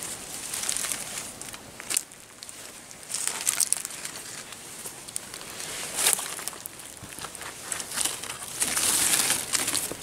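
Dry leaves, twigs and undergrowth rustling and crackling in irregular bursts as someone pushes through jungle brush, with the loudest stretch near the end.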